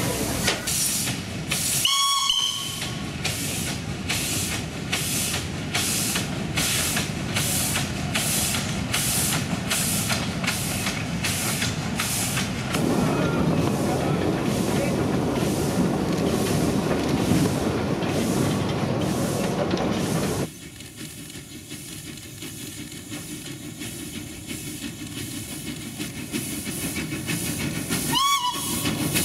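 Cape-gauge steam locomotive of the Cepu forest railway working a train, its exhaust chuffing steadily at about two beats a second. It gives a short whistle toot about two seconds in and another near the end. About two-thirds through the sound suddenly drops to a quieter level, with the chuffing still faintly heard.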